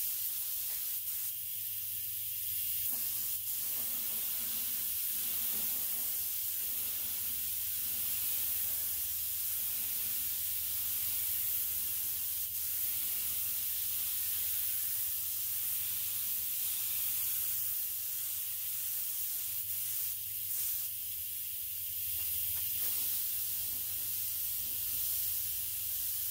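Neiko 31207A HVLP mini gravity-feed spray gun hissing steadily as it sprays automotive base coat, with a low steady hum underneath.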